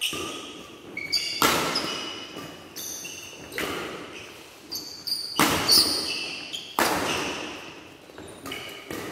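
Badminton rally: rackets smacking the shuttlecock, a sharp hit every second or two, each echoing in the hall, with short high squeaks of shoes on the court floor between the hits.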